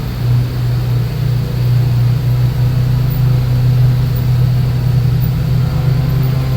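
Arctic Cat Wildcat side-by-side's engine running at a steady, even pace while driving.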